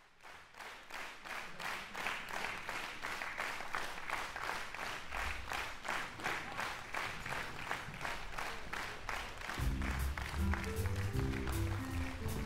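Hands clapping together in a steady beat, about two claps a second. About five seconds in a low bass line joins, and near the end a wind band playing a swing number comes in with bass and piano notes.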